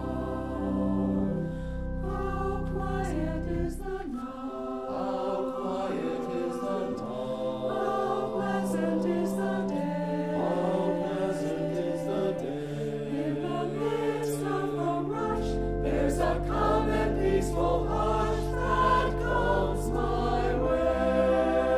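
A choir singing sacred music over sustained organ chords. Deep held bass notes drop out for a stretch in the middle and come back about two-thirds of the way through.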